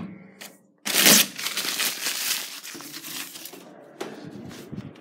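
Handling noise from a phone being moved and rubbed against clothing: a loud rustling scrape about a second in, fading over a few seconds into smaller rubs and knocks.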